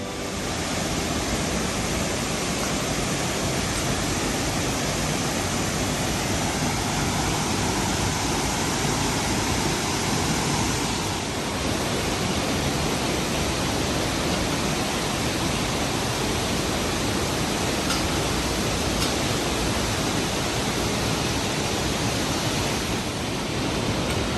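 A tall waterfall pouring steadily into its pool, heard close up as an even, unbroken rush of water.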